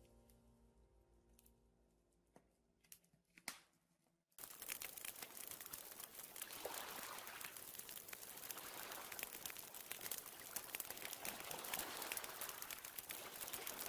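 Soft music fading out with a few pops, then a wood campfire crackling and popping densely and steadily from about four seconds in.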